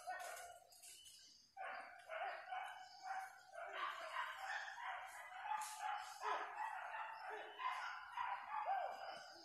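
Hunting dogs barking and yelping in a dense, overlapping chorus. There is a brief lull about a second in, and then the barking resumes and keeps going.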